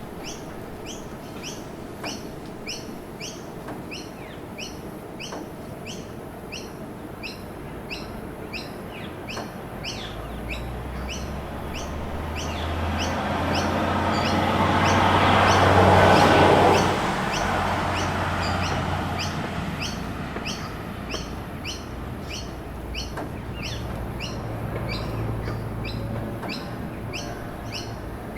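City street ambience: high chirps repeating evenly, about two a second, over a low traffic rumble. A vehicle passes close, building up to the loudest point about halfway through and then falling away quickly.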